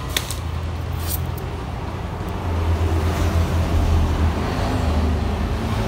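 A steady low engine hum that grows louder about halfway through, with a few light metal clinks near the start.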